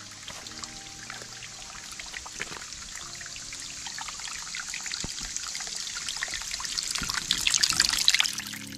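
Shallow creek water trickling and splashing over rocks and leaf litter, with a constant fizzing patter that grows louder toward the end.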